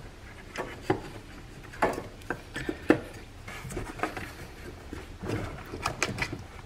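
Irregular knocks, clunks and scraping of an old front engine mount being twisted and pulled by hand up through a 2011 Chevy Equinox engine bay, bumping against the parts around it. The sharpest knocks come about one, two and three seconds in.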